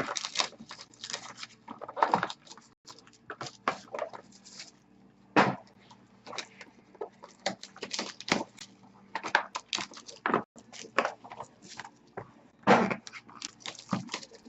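Trading-card pack wrappers crinkling and cards rustling as packs are handled and opened: a string of short, irregular crackles.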